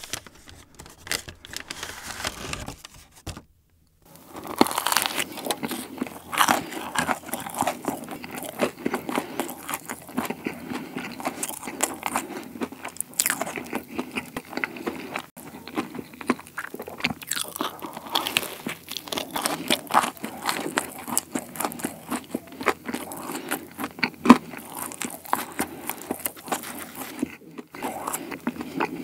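Close-miked eating of a fried soboro bun, a streusel-topped fried bread with red bean filling. A faint paper rustle comes first as it is taken from its bag. About four seconds in, crisp crunching and crackling start as the crumbly fried crust is bitten and chewed.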